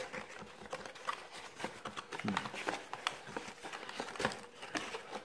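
Cardboard gift box being handled and pressed shut, with irregular small clicks, rustles and scrapes from its flaps and insert. The lid no longer closes properly.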